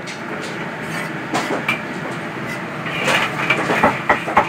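Pacific PR-9530 filterless range hood's two fans running steadily over a wok of sizzling stir-fry. From about three seconds in, a metal spatula scrapes and clinks against the wok several times.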